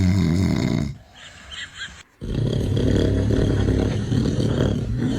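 A man snoring loudly with low, rattling snores. One snore ends about a second in; after a short pause the next starts about two seconds in and runs for nearly four seconds.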